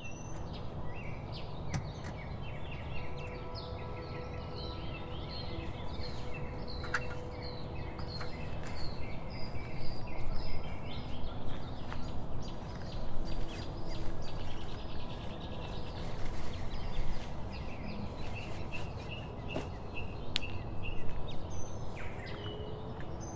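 Several birds singing and chirping, many short repeated calls, over a steady low background rumble.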